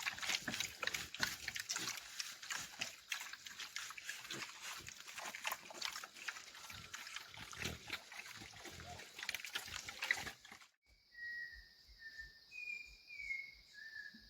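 Pigs grunting and snuffling in a dense, irregular stream of rough sounds. About three-quarters of the way in this cuts off abruptly, leaving a steady high insect drone and a few short bird whistles.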